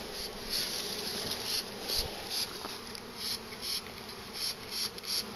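A package of honey bees buzzing steadily in its screened shipping box, while a trigger spray bottle hisses in quick squirts, about two or three a second, misting sugar water onto the bees.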